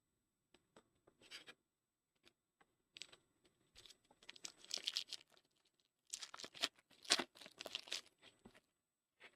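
A sports-card pack wrapper being torn open and crinkled, in several faint, irregular rustling bursts.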